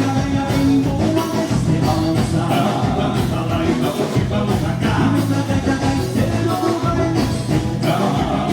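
Live gaúcho dance band playing an instrumental passage between sung lines, with a steady, even dance beat under sustained melody notes.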